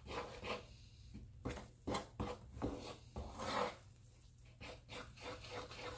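A spoon scraping and stirring thick bsisa paste in a wooden bowl: a series of irregular rubbing strokes.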